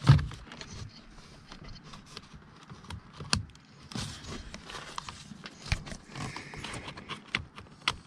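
Scattered clicks and knocks of hand work on truck parts: plastic and metal pieces being handled and fitted, with a louder knock at the very start and a few sharp clicks spread through.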